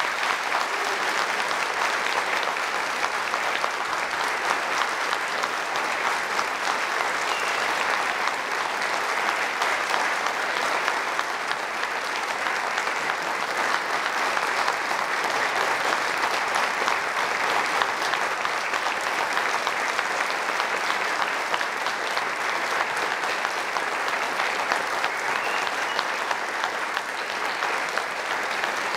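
Audience applauding, steady and unbroken.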